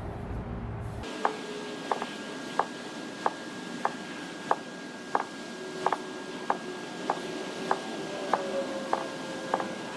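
Steady ticking, about three sharp ticks every two seconds over a faint steady high tone, starting about a second in.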